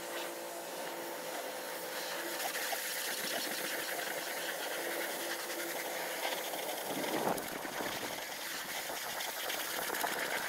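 Steady hissing of high-pressure water spray in a self-service car wash bay, with a brief low rumble about two-thirds of the way through.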